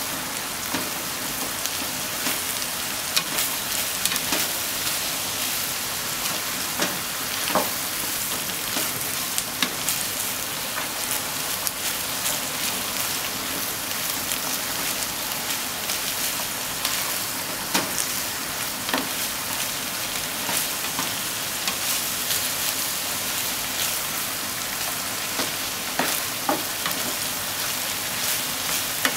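Minced pork and diced onion sizzling in a non-stick frying pan with a steady hiss, with scattered clicks and scrapes as a spatula stirs them against the pan.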